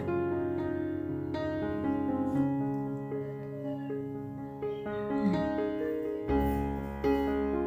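Background music: a gentle piano melody, a new note or chord about every second, with a deeper bass note coming in near the end.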